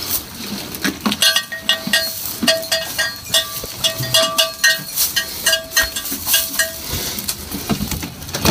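A small metal bell clinking in quick, irregular strokes, each stroke ringing briefly on the same note, as a goat wearing it moves and feeds.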